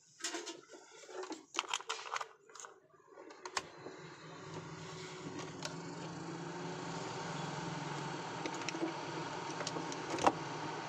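Clicks and handling knocks on an Orpat OEH-1220 blower room heater. About three and a half seconds in, its fan motor starts and runs as a steady whir with a low hum, with a slight rising tone as it spins up. The blower is working again after the repair. A sharp knock comes near the end.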